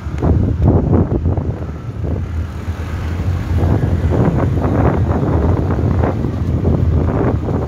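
Wind buffeting the microphone in gusts: a loud low rumble that swells and fades.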